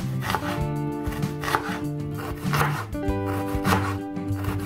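Background music of plucked guitar-like notes, over a chef's knife chopping onion on a wooden cutting board, with a knock of the blade roughly once a second.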